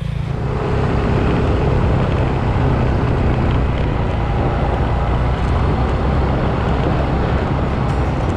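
Small Suzuki motorcycle engine running steadily at road speed, picked up by the onboard microphone along with a rush of wind. The sound builds over the first second, then holds.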